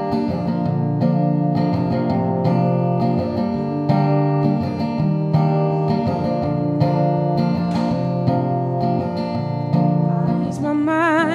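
Acoustic guitar strumming chords in a steady rhythm, about two strums a second, under a song's instrumental break. A singing voice with vibrato comes in near the end.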